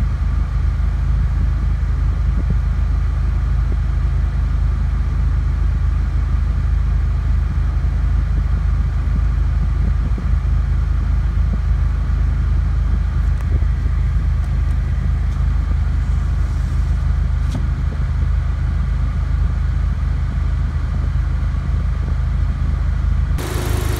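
Honda Civic Type R FK8's 2.0-litre turbocharged four-cylinder idling steadily at about 1,000 rpm through a newly fitted HKS downpipe and midpipe, heard from inside the cabin.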